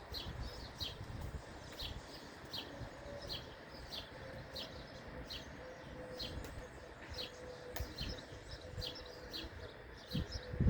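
Small birds chirping: short, high notes repeated steadily, roughly one or two a second, over a low outdoor rumble.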